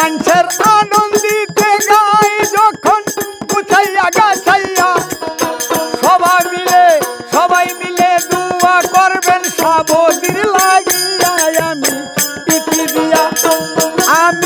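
Bangladeshi jari folk music: a man and a woman singing over a plucked long-necked lute and a hand drum, with a dense, fast rattling percussion pattern throughout.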